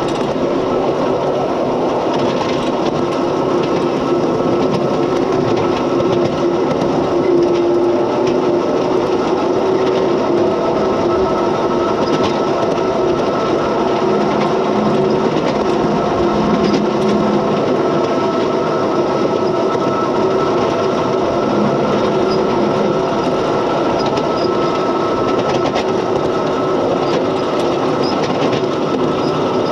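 7¼-inch gauge miniature mining locomotive running steadily along the track, heard from its cab: a constant drive hum with the noise of wheels on the rails.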